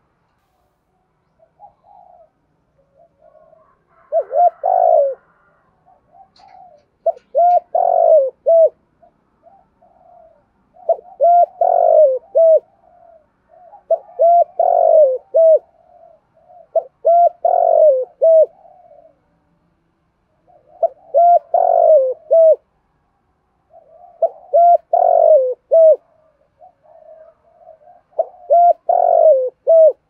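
Spotted dove cooing: a phrase of several loud coos about every three to four seconds, eight phrases in all, with softer coos in the gaps.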